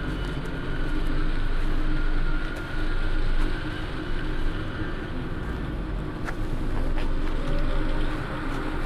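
A steady low rumbling drone with faint held tones, swelling and easing slightly, with a couple of soft clicks about six and seven seconds in.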